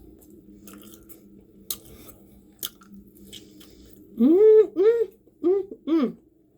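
A person chewing food with wet mouth clicks and lip smacks, then about four seconds in four short closed-mouth "mm" hums of enjoyment, each rising and falling in pitch and louder than the chewing.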